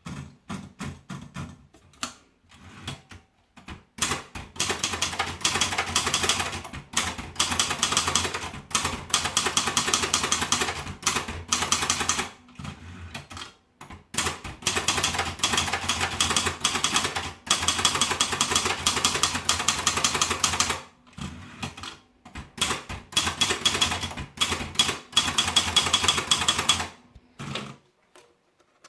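Sperry Remington typewriter being typed on: long runs of rapid key strikes broken by a few short pauses, over a low steady hum. The typing stops shortly before the end.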